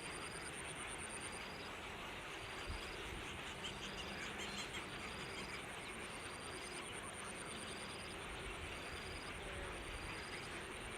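Outdoor natural background over a steady hiss: a continuous high insect-like drone, with a short rising chirp repeating about once a second. A few faint high chirps come about four seconds in.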